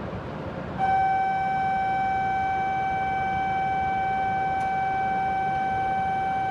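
Shinkansen platform departure bell: one steady electronic tone that starts about a second in, holds for nearly six seconds and cuts off sharply, signalling that the train is about to leave, over the low hum of the station.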